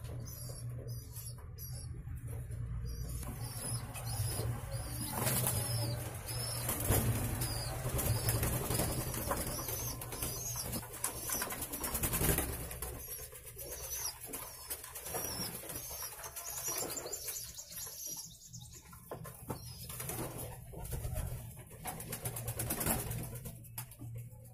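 Domestic fancy pigeons bathing in a shallow tub of water: wings flapping and splashing in busy spells, with pigeons cooing.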